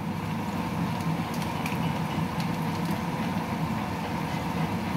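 Steady low rumbling noise from the stovetop while chicken is stir-fried in a pan, with a few faint light clicks of a utensil between about one and two and a half seconds in.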